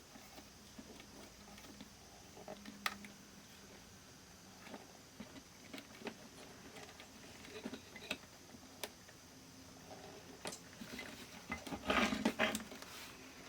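Scattered light clicks and handling noises of small objects, with a denser burst of clatter about twelve seconds in.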